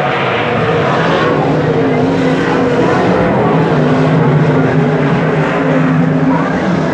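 Several winged sprint cars' 410 cubic-inch V8 engines running hard around a dirt oval, a loud, continuous blend of engine notes that rise and fall in pitch as the cars throttle through the turns and pass.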